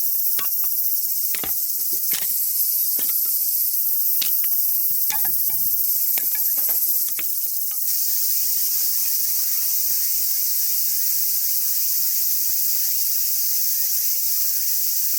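Steady high-pitched chorus of insects such as crickets, with scattered sharp clicks and pops through the first half. The chorus changes abruptly about eight seconds in.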